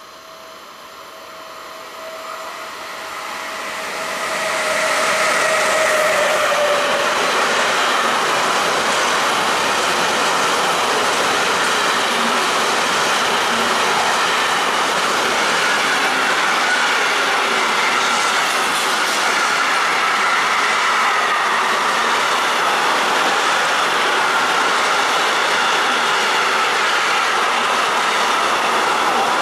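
Intermodal freight train passing close by on the near track. Over the first five seconds it grows louder as it arrives, then holds a steady, loud rolling noise of wagon wheels on rail, with a high, drawn-out wheel squeal running through it.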